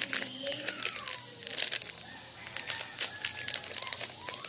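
A plastic-foil Milo powder sachet crinkling in the hands as it is torn open, an irregular run of short crackles.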